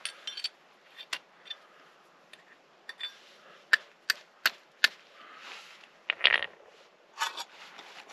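A series of sharp clicks and knocks: a few light ones, then four loud ones in an even run about two-thirds of a second apart just before the middle, and a short scraping rustle about two seconds later.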